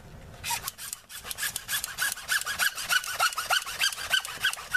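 Hacksaw cutting PVC pipe: quick back-and-forth rasping strokes with short squeaks, starting about half a second in.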